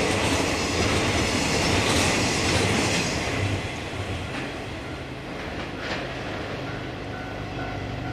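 Freight train of tank wagons rolling past, wheels clacking on the rails. The noise drops off about three seconds in as the last wagons go by, leaving a couple of faint clicks from the receding train.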